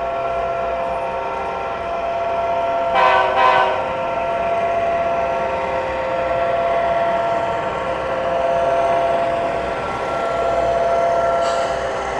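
Sound from Tsunami2 sound decoders in HO-scale F3 diesel locomotive models, played through small onboard speakers: a steady diesel prime-mover drone, with two short horn blasts about three seconds in.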